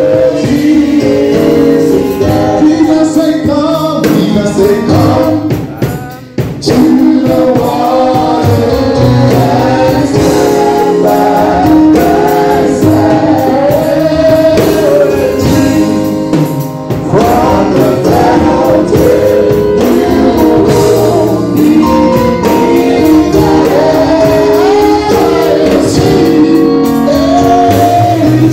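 Gospel song sung by a group of women's voices together, with a man's voice leading through a microphone and loudspeakers; the singing dips briefly about six seconds in.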